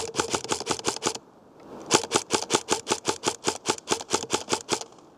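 Custom M4 airsoft electric gun (AEG) firing two strings of rapid shots, about six or seven a second. The first ends about a second in, and the second follows after a short pause and stops near the end.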